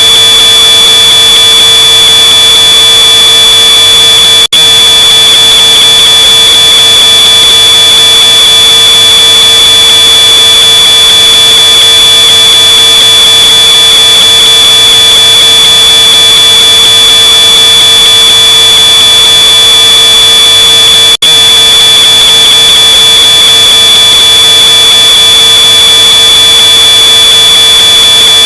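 Smoke alarm sounding one continuous, shrill high-pitched tone, boosted until harshly distorted. It cuts out for an instant twice.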